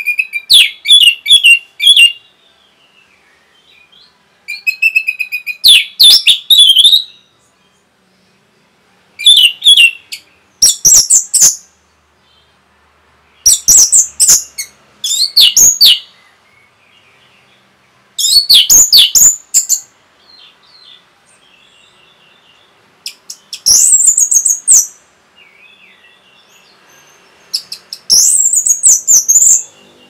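Orange-headed thrush singing: about eight loud phrases of rapid, high-pitched notes, each one to two seconds long, separated by short pauses.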